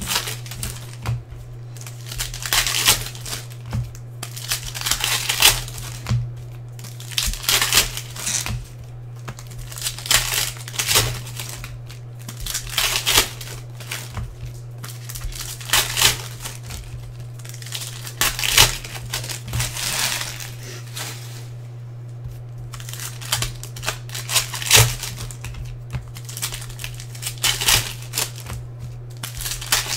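Foil trading-card pack wrappers being torn open and crinkled by hand, in irregular bursts every second or two, over a steady low hum.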